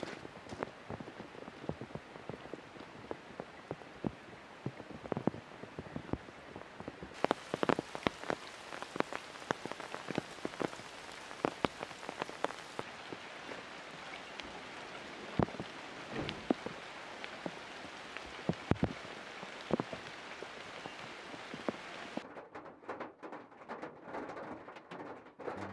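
Steady rain falling, with heavy drops tapping irregularly as scattered sharp hits. Near the end it turns duller, heard from inside a van's cabin with rain on the roof and windows.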